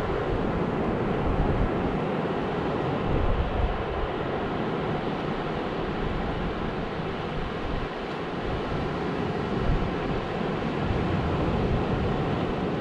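Surf breaking and washing on a sandy beach in a steady rush, with wind rumbling on the microphone.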